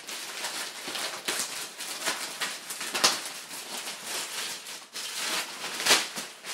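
Thin polythene mailing bag crinkling and rustling as it is pulled and picked at by hand to tear it open, with two louder crackles, about three seconds in and near the end.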